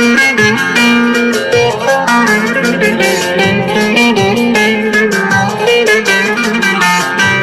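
Instrumental break of a Turkish song: a plucked string instrument plays the melody over a band with a steady beat, and there is no singing.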